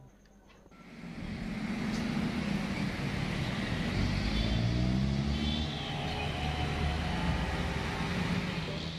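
Road traffic: a small tank truck, motorcycles and cars driving past, their engines running over a steady road noise. It starts about a second in, and an engine rises in pitch around four to five seconds in.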